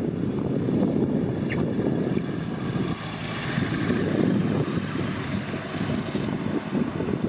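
ICP Savannah S light aircraft's propeller engine running as it rolls past on the runway, growing louder about halfway through as it passes closest, under heavy wind buffeting on the microphone.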